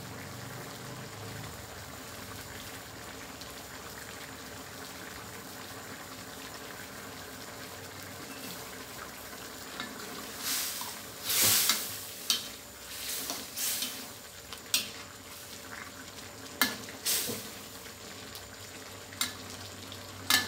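Coconut-milk curry simmering in a metal wok over a gas flame, then from about ten seconds in a ladle stirring it: scraping swishes through the curry and several sharp taps of the ladle against the pan.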